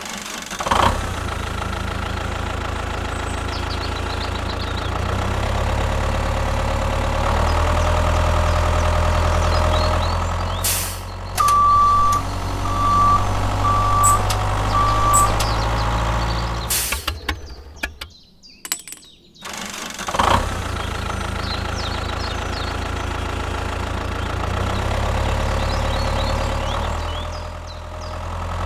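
Miniature model tractor's engine sound running steadily, with a run of four short, high beeps near the middle and a brief cut-out a little after.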